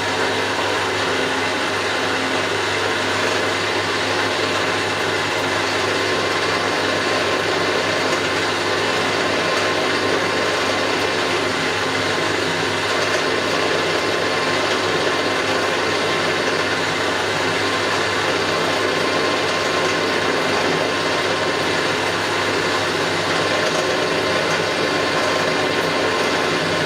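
Milling machine running steadily, a constant mechanical hum.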